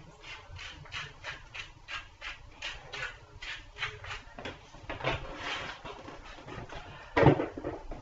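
Black pepper being dispensed over a roast in quick, scratchy strokes, about three to four a second, followed by a sharp knock about seven seconds in.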